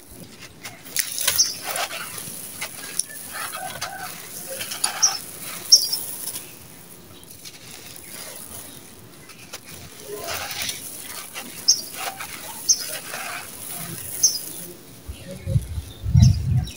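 Hands crumbling and sifting dry, gritty sand-cement with small white stones, the grains pouring and pattering onto a heap of sand in irregular bursts of crunchy rustling. A few dull low thumps near the end.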